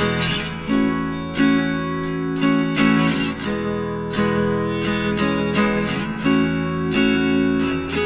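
Background music: plucked guitar chords over a regular beat.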